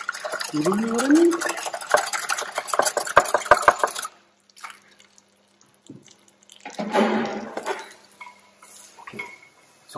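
Wire whisk beating eggs in a glass bowl: rapid clinking strokes against the glass that stop about four seconds in. A short rush of noise follows about seven seconds in.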